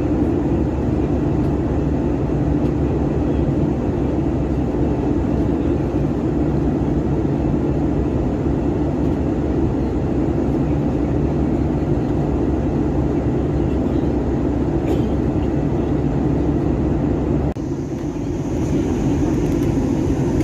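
Airbus A321 jet engines running: a steady, loud, even rumble. About 17 seconds in the sound changes suddenly to a lighter rumble with more hiss.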